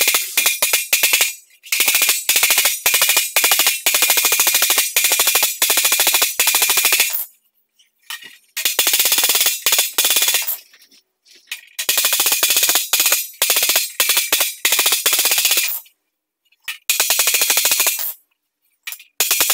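Body hammer beating a round sheet-metal disc against a flat steel anvil plate in fast runs of blows, several a second, with a bright metallic ring and short pauses between runs. This is planishing to knock down a ridge left in the metal after its shrinks were ironed out.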